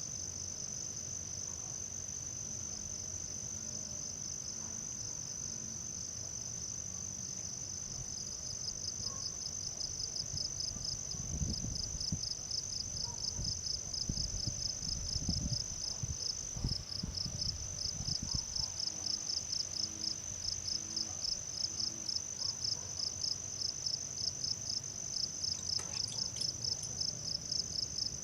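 Insects, such as crickets, trilling: a steady high-pitched drone with a second, rapidly pulsing trill joining about a third of the way in. There is some low rumbling in the middle.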